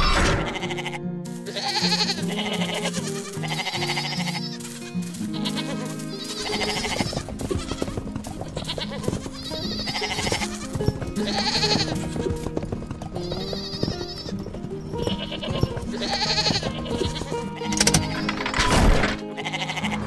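Sheep bleating again and again, a call every couple of seconds, over background music.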